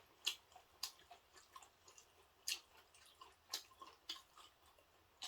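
Someone chewing food close to the microphone: faint, irregular crunchy clicks.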